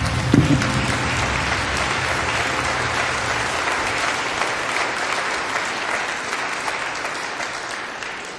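Audience applauding, with the last low notes of the music dying away in the first second. The clapping is steady, then fades out near the end.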